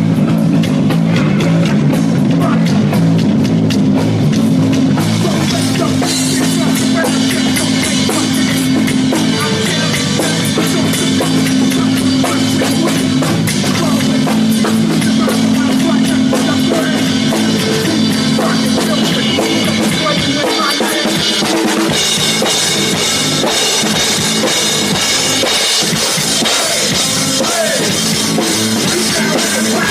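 Live rock band playing at a soundcheck: a drum kit pounding steadily under a low bass line. The bass line drops out about two-thirds of the way through, leaving the drums with brighter cymbals.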